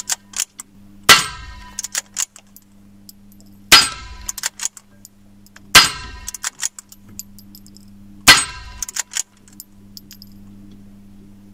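Four shots from a Pallas BA-15 .22 LR rifle, spaced about two to two and a half seconds apart, each followed by the clang of the bullet striking a steel target plate.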